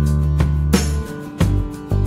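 Background music led by a plucked, strummed guitar over sustained low bass notes, with regular sharp note onsets.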